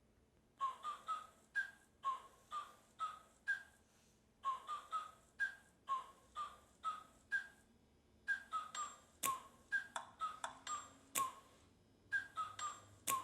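Intro of a hip-hop track played through a VITIN R7 Bluetooth speaker at half volume: a repeating riff of short, high notes in phrases of several quick notes, with a few sharp clicks in the second half.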